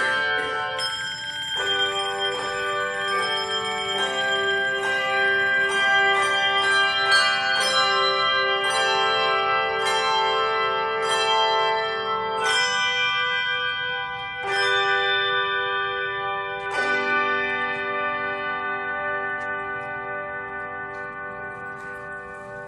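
Handbell choir ringing a run of chords, each struck chord left to ring on. The last chord, struck about three-quarters of the way through, is held and slowly fades away.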